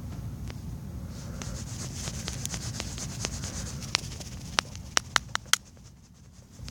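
A fingertip rubbing back and forth across a touchscreen while erasing a drawing, over a low steady hum. A quick run of sharp taps comes about four to five seconds in.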